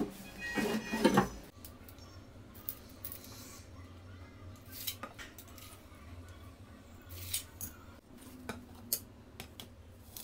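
A drawer running shut on a metal ball-bearing drawer slide in the first second or so. After that come scattered light metallic clicks and clinks as steel drawer slides are handled on a bench.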